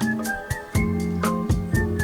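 Background music: a light instrumental track with a steady beat, with guitar.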